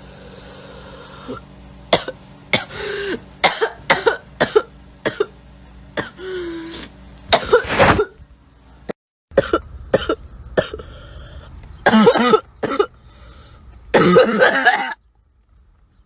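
A girl's harsh barking cough, over and over: quick single coughs and short runs, some with a voiced rasp, and a longer coughing fit near the end.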